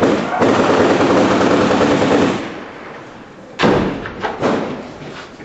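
A long burst of rapid automatic gunfire for about two and a half seconds, trailing off in echo, then a single loud shot about three and a half seconds in followed by a few lighter reports.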